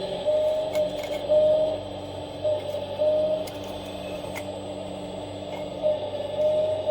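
Electric hydraulic pump of a 1/14-scale RC hydraulic excavator whining steadily, swelling louder several times as the hydraulics are worked, with a few sharp clicks.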